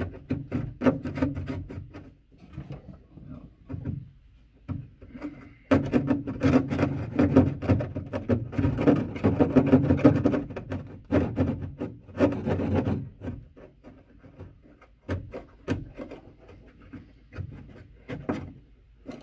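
Drywall jab saw cutting through sheetrock by hand: rough rasping back-and-forth strokes. The sawing is fast and loud from about six seconds in to about thirteen seconds, with lighter, more scattered strokes before and after.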